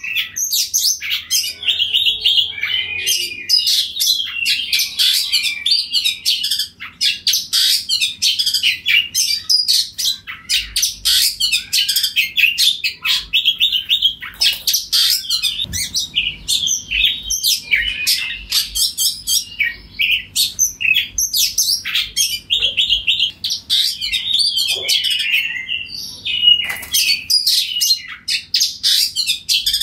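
Oriental magpie-robin singing loudly: a rapid, varied stream of high whistles, chirps and trills, broken only by brief pauses.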